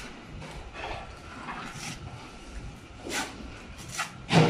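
A plastering trowel scraping and tapping mortar into the joint above a precast concrete lintel, in several short, irregular strokes with the loudest near the end.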